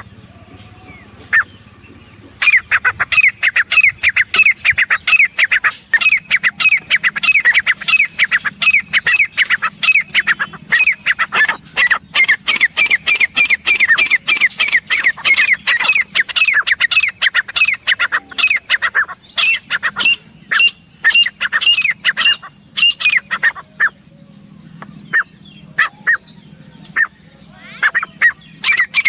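Grey francolin calling: a fast, loud run of sharp, high notes, several a second, each dropping in pitch. It starts about two seconds in, thins out after about twenty-four seconds, and picks up again near the end.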